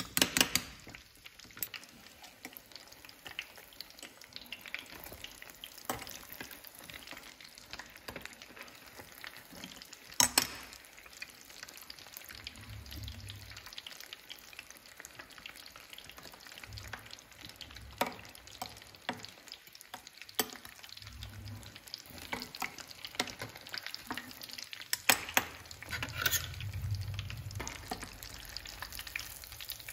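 Breaded mac and cheese pieces deep-frying in hot oil in a stainless steel pot: a steady crackling sizzle. Three sharp knocks of a metal utensil against the pot come at the start, about ten seconds in and near the end.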